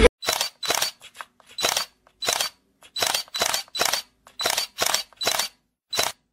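A series of short, sharp sound-effect hits dubbed over the picture, about two a second, each burst alike and followed by dead silence.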